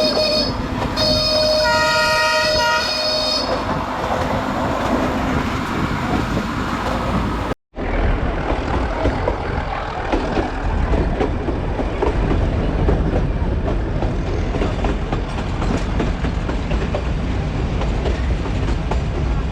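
Diesel locomotive horn of a mountain railway train sounding in two blasts, the second about two and a half seconds long, followed by the train running along the track with a steady rumble and clattering wheels.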